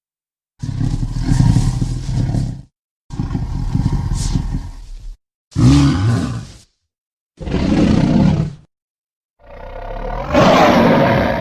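Five separate monster roars with short silent gaps between them, made up from big cat roars of lions and tigers. The last roar is the loudest and brightest.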